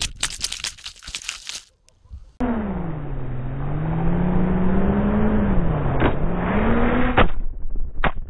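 Racing quadcopter, brushless motors and propellers, whining with a pitch that falls, rises and falls again as the throttle changes. It is preceded by a quick run of sharp clattering knocks, with a few single knocks near the end.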